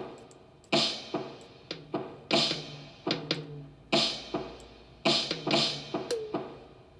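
Drums played in a beat of sharp strikes, about two to three a second, each ringing briefly. Some hits carry a low drum tone, and one near the end bends down in pitch.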